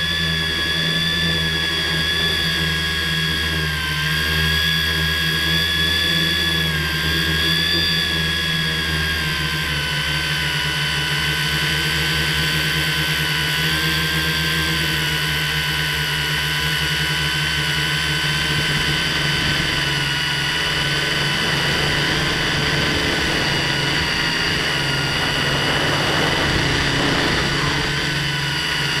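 FPV drone's motors and propellers whining steadily, heard close from the camera on board, the pitch shifting a little and dropping slightly about ten seconds in.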